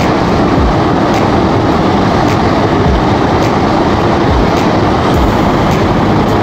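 Stream water rushing steadily and loudly close to the microphone.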